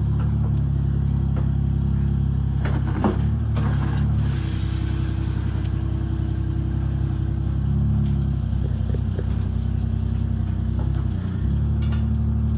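Engine of digging equipment running steadily during the excavation, with a few sharp knocks about three seconds in and a brief drop in level near the end.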